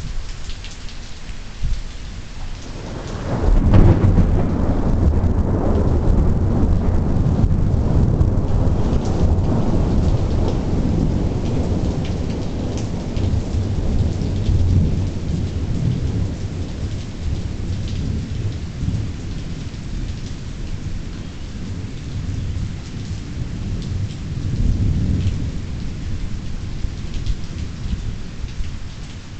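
Steady rain falling, with a long roll of thunder that breaks about three seconds in and rumbles on for many seconds as it slowly fades, then swells briefly again near the end.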